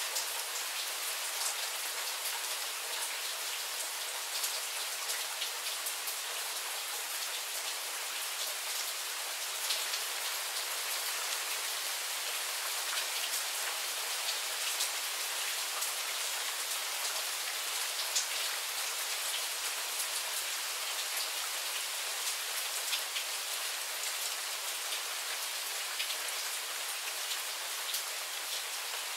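Steady rain shower falling, an even wash of rain with many individual drops ticking sharply on nearby surfaces.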